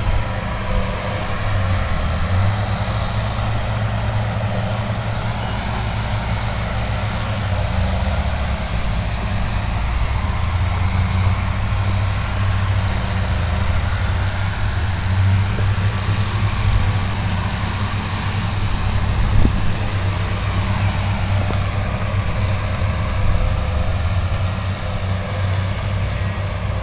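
Heavy earthmoving machinery running steadily with a continuous low engine drone.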